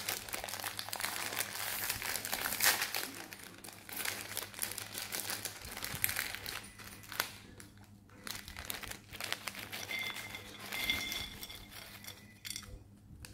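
Plastic snack bag crinkling as it is handled and tipped, dense at first and then in sparser bursts, with rice crackers clattering out into a ceramic bowl near the end.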